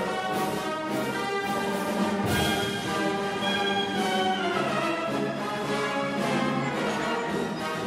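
Orchestral background music with brass and strings, playing held notes that shift in pitch.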